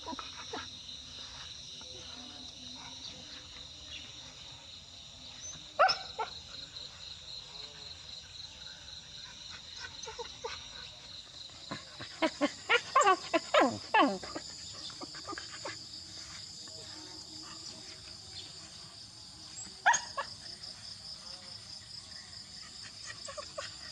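Young dogs giving short yelping cries that fall in pitch as they greet the person: one about six seconds in, a quick run of them around twelve to fourteen seconds, and another near twenty seconds. Insects chirr steadily and high-pitched throughout.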